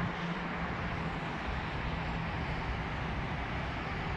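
Steady road traffic noise, a continuous hum with no distinct events, with a faint low hum that fades out about halfway through.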